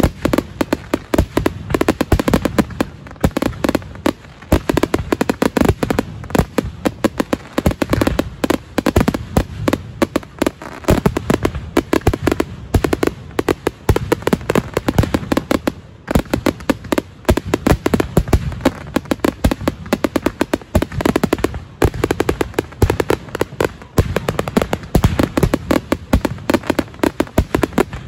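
Fireworks finale: a near-continuous barrage of sharp bangs and crackling reports, many per second, overlapping with hardly a pause.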